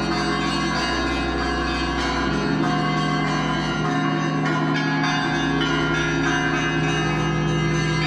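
Russian Orthodox church bells of the Trinity-Sergius Lavra ringing together in a continuous peal: many bells at once, from deep heavy tones to high ones, overlapping without a pause.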